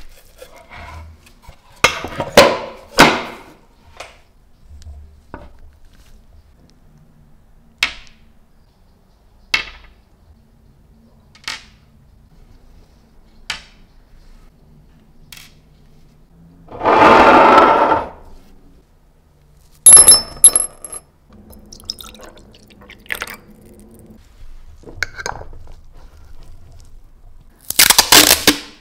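Handling sounds with no voice. It opens with a drawer and rustling through packing fibre. Then come a series of light clicks, roughly one every two seconds, as small rusty screws and the lighter's parts are set down on a wooden tabletop. A noisy rustle of about a second comes midway, and near the end masking tape is ripped off its roll.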